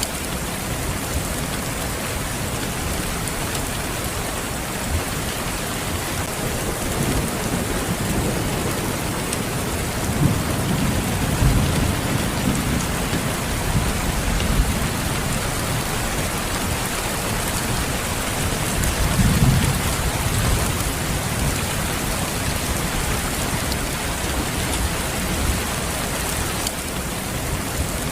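Steady rain falling, with low rumbles of thunder swelling about ten seconds in and again near twenty seconds.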